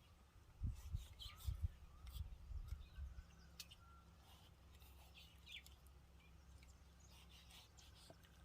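Faint bird chirps over a low, steady background rumble, with a few soft knocks in the first two seconds.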